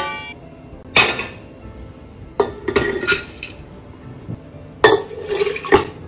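Kitchen clatter of cookware: a metal ring dies away at the start, and a few separate knocks and clinks follow. Near the end, dry yellow lentils rattle out of a glass bowl into an empty pressure cooker, with a sharp knock on either side of the pour.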